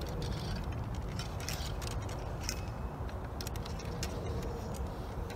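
Steel ramrods clinking and scraping in several musket barrels as the cartridges are rammed home: a scatter of light metallic ticks at irregular moments over a steady low rumble.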